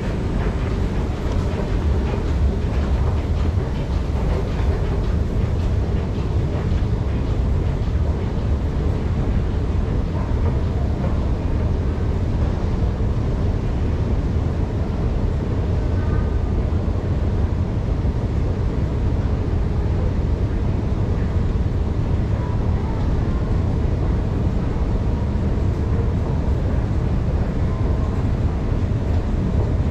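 Steady low rumble and drone of a long escalator running while it is ridden.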